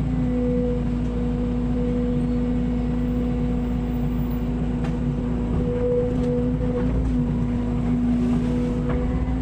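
An engine running steadily at a constant speed, with a low rumble and an even hum.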